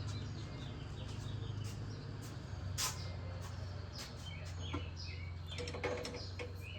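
Small birds chirping repeatedly over a steady low hum, with a few light clicks and knocks of parts being handled.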